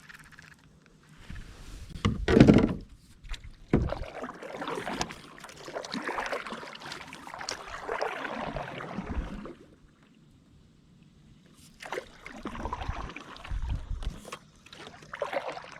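Kayak paddle strokes splashing and sloshing in the water, in two spells with a pause between, and a loud thump about two and a half seconds in.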